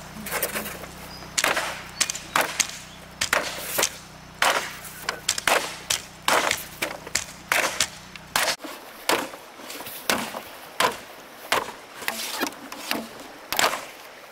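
Repeated chopping blows on bamboo, sharp strikes at about two a second with a slightly uneven rhythm.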